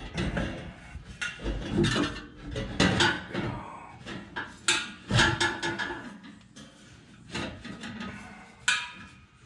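Metal exhaust pipe clanking, knocking and scraping as a resonator delete pipe is worked into place on the exhaust. The knocks come irregularly, with louder ones about 3 and 5 seconds in and one near the end.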